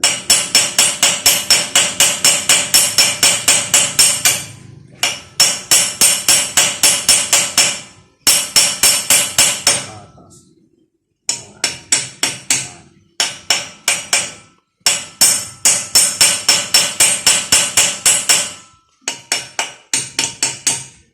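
Hammer beating on metal at a seized wheel lug nut: fast runs of ringing metal-on-metal blows, about five a second, broken by short pauses. This is the work of breaking off a stuck lug nut.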